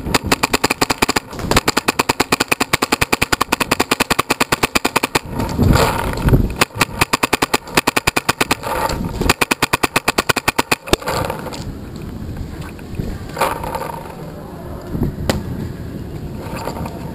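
Tippmann X7 Phenom paintball marker firing long rapid strings, about eight shots a second, broken by two short pauses, then going quiet apart from a few scattered single pops.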